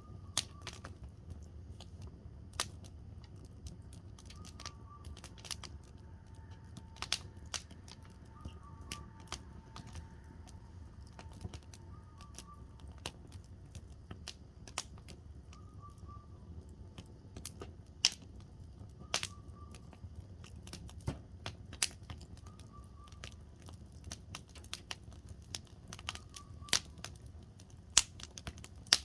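Firewood burning in a campfire, crackling with sharp, irregular pops over a low steady rumble, several of the pops louder than the rest.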